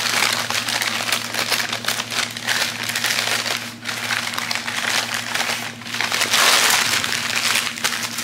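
Packing wrap crinkling and rustling in repeated waves as two candle holders are unwrapped and handled.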